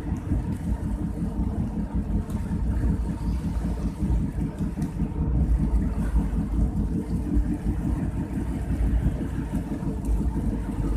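Steady low rumble of a moving car, its engine and tyre noise.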